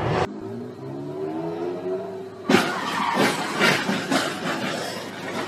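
A car engine revving, its pitch rising as it accelerates. About two and a half seconds in comes a sudden sharp bang, followed by a run of crackling knocks while the engine keeps running.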